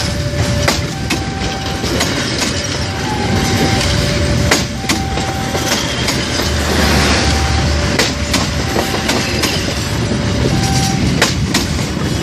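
Passenger train carriages passing close by, with a steady rumble and the wheels clacking sharply over rail joints. Behind it the level crossing's warning alarm sounds, two tones taking turns.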